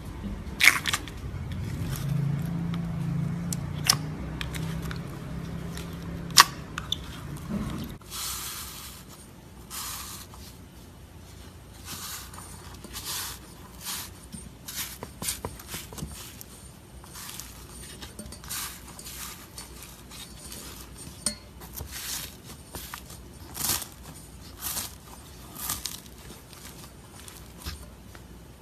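Slime being handled: a long string of short squelches and crackling pops, with a few sharp clicks and a low hum under the first several seconds.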